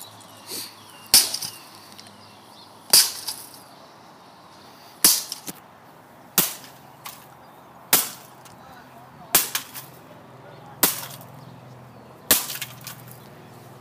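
Plastic toy gun being smashed with repeated hard blows: about eight sharp cracks, one every second and a half or so, each followed by a brief rattle of plastic.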